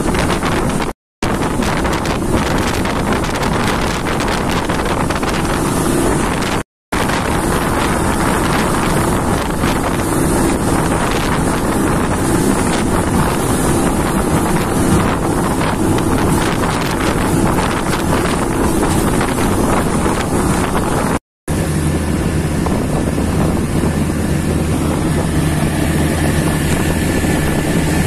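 Speedboat running fast over open sea: wind buffeting the microphone over rushing water and the boat's engine drone. The engine hum stands out more clearly over the last several seconds. The sound cuts out briefly three times.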